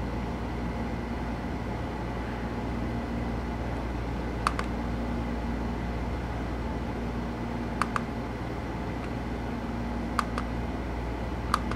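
Push-buttons on a handheld ESC programming box being pressed, heard as four sharp double clicks spread a few seconds apart over a steady low hum.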